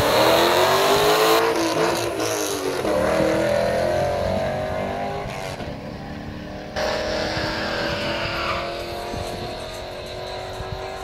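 A 2015 Ford Taurus SHO, with its twin-turbo 3.5 L V6, and a Chevrolet Camaro SS V8 accelerate hard off the drag-strip line side by side. Their engine notes rise in pitch, dip twice at gear changes in the first few seconds, then climb again. The sound fades as the cars pull away down the quarter mile.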